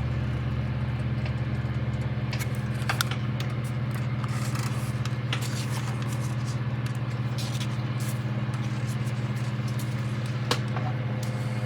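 A steady low mechanical hum, with a few short clicks and light scrapes of small parts and screws being handled.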